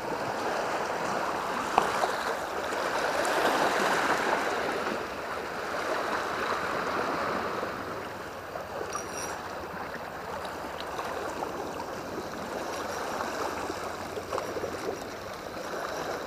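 Sea water washing and lapping against shoreline rocks, a steady wash that swells about three seconds in and eases again. A single sharp click sounds just under two seconds in.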